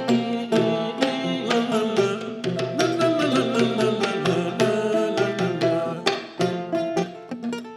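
Kora played in a fast run of plucked notes over lower bass notes, as the opening instrumental of a West African griot song.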